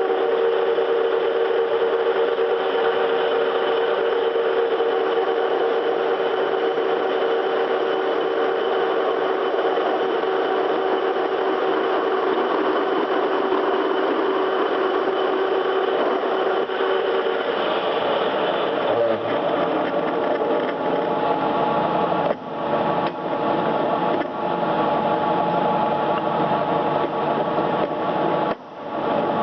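Electric workshop machine running steadily, a motor hum with a grinding-like noise over it. The tone changes about two-thirds of the way through, and the sound briefly drops twice near the end.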